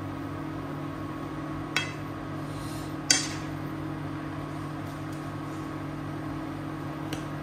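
Steel spoon stirring noodles in a metal frying pan, clinking against the pan a few times, loudest about three seconds in, over a steady low hum.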